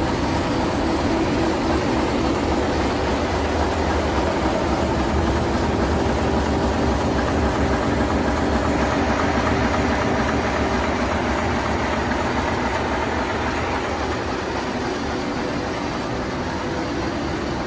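Locomotive diesel engine running steadily, heard close up inside its engine compartment.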